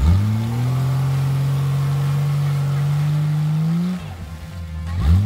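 A vehicle's engine revs up sharply and is held at high revs, climbing a little, then let off about four seconds in. A second brief rev starts near the end, as a vehicle stuck in deep mud is driven to get out.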